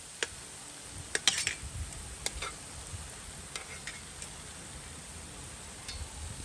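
Chin chin dough pieces frying in hot oil, with a spoon stirring them and knocking against the pan in scattered sharp clinks and scrapes, the loudest cluster about a second in.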